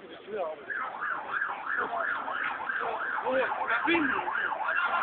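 Emergency vehicle siren in a fast yelp, its pitch sweeping up and down about three times a second, starting about half a second in.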